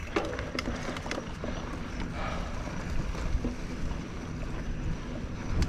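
Specialized Fuse mountain bike being ridden over a bumpy dirt trail: steady tyre and drivetrain noise with a low rumble, scattered with sharp clicks and knocks as the bike rattles over roots and bumps.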